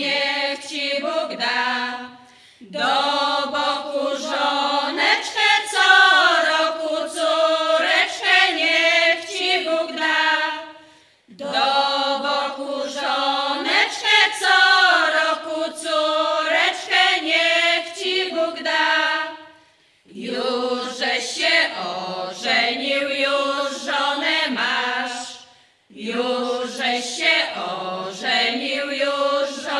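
Women's folk choir singing a cappella in harmony, a traditional Polish folk song. It is sung in long phrases, with four brief breath pauses between them.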